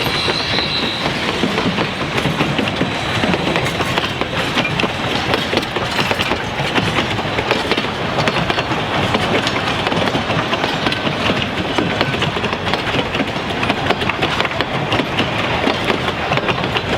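Train cars rolling past, their wheels clattering steadily over the rail joints. A thin high ringing, like wheel squeal, fades out about a second in.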